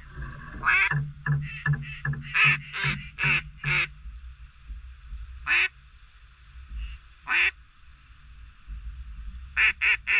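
A series of loud duck quacks. A run of about eight comes in the first four seconds, with a single quack near the middle and another a couple of seconds later. A fast run of quacks begins near the end.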